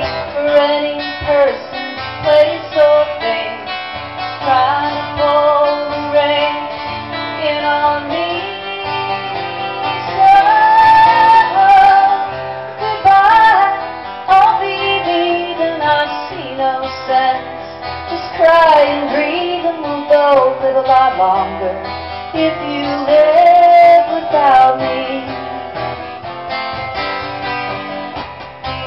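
Live folk-rock music: acoustic guitars strumming chords under a bending, wavering melody line.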